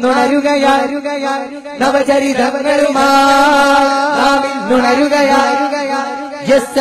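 Voices singing and chanting a Malayalam revolutionary song (viplava ganam), over a steady low held tone.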